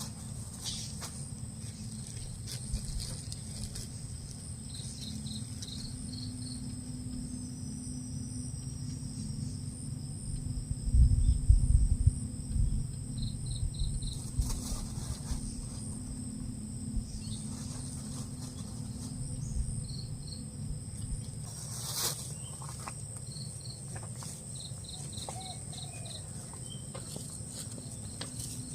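Insects calling steadily: a high, fast-pulsing buzz, with short runs of four or five quick chirps now and then. About 11 seconds in, a brief low rumble, wind buffeting the microphone, is the loudest thing.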